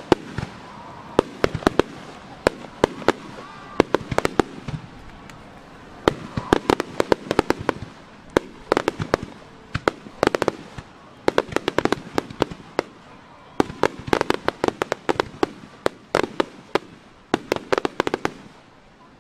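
Aerial fireworks bursting in rapid volleys: dense clusters of sharp bangs, several a second, with short lulls between the volleys.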